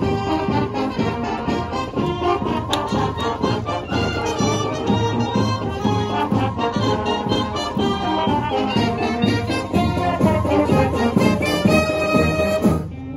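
High school marching band playing outdoors: brass over a steady drum beat. The sound changes abruptly just before the end.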